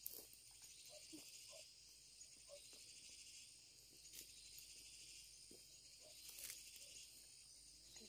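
Faint, steady chorus of insects shrilling, with a few soft crackles of footsteps in dry undergrowth, one a little louder about six seconds in.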